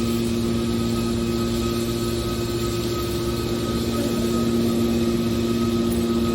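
Scrap steel wire baler running steadily: a constant machine hum with a fixed-pitch whine over a steady noise, with no strokes or pauses.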